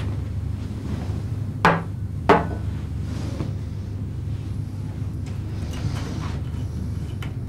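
Two glass tumblers set down one after the other on a wooden table: two sharp knocks a little over half a second apart, over a steady low hum.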